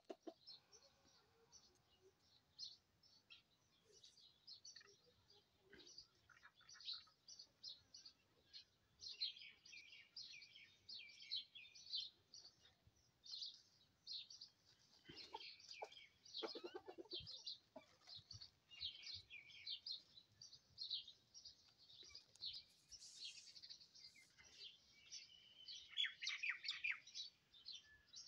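Small birds chirping steadily and faintly, a dense run of short high chirps. About halfway through, a lower clucking call from the chickens comes in briefly.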